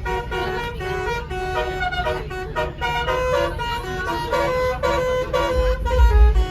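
Basuri telolet multi-tone bus horn playing a melody: a run of loud horn notes stepping from pitch to pitch every fraction of a second. A heavy low rumble comes in near the end.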